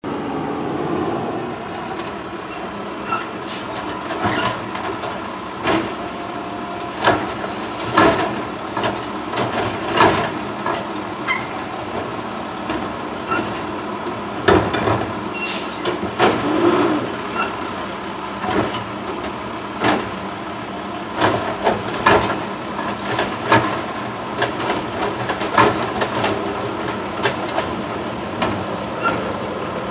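Automated side-loader garbage truck running at the curb while its hydraulic arm grabs, lifts and tips a wheeled trash cart into the hopper, with repeated clanks and bangs. There is a thin high squeal in the first few seconds.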